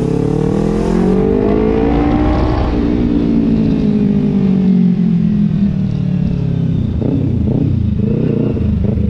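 Kawasaki Ninja 250 Fi parallel-twin engine through an Austin Racing aftermarket exhaust, under way. It accelerates with a rising note for about two and a half seconds, drops abruptly in pitch at a gear change, then falls slowly and wavers near the end as the throttle eases.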